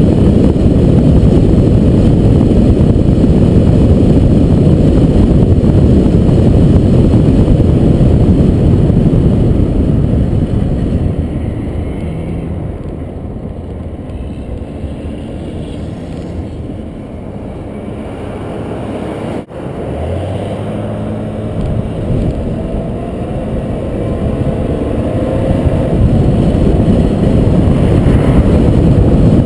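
Car driving at highway speed: steady road and wind noise. About ten seconds in, it fades as the car slows, and after a brief dropout the engine is heard accelerating, its pitch rising while the road noise builds back up.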